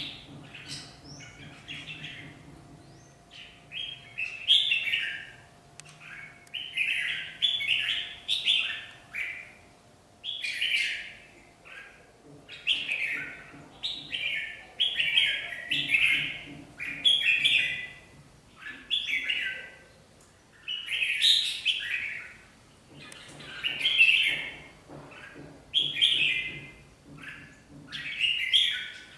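Red-whiskered bulbuls singing and calling back and forth in short, chattering phrases, one every second or two. It is a caged decoy male and a rival pair answering each other in a territorial contest.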